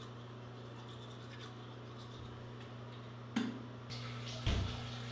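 Manual toothbrush scrubbing teeth, faint, over a steady low hum. A sharp knock comes about three and a half seconds in, and a low thump about a second later.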